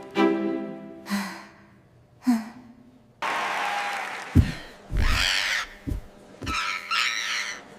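Breathy sighs and exhales, with several low thumps in the second half.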